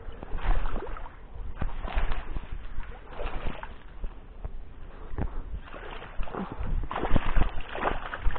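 Irregular rustling and bumping handling noise as the camera is moved among reed stems, with low rumbling knocks on the microphone, heaviest near the end.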